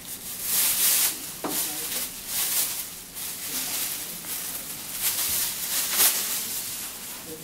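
Thin white disposable plastic apron rustling and crinkling in bursts as it is shaken open and pulled on over the head.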